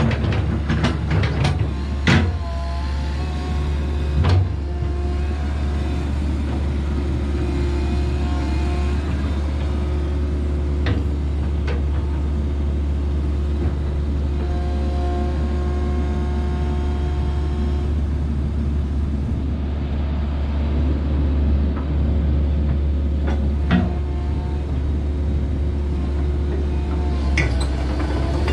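Komatsu PC138US-8 excavator's diesel engine running steadily with a deep hum, overlaid by shifting hydraulic tones and a few sharp metallic knocks.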